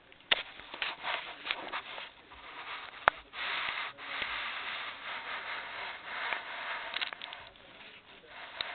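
A puppy's fur and muzzle rubbing and pushing against the camera's microphone: scratchy rustling in uneven stretches, with several sharp clicks, the loudest about three seconds in.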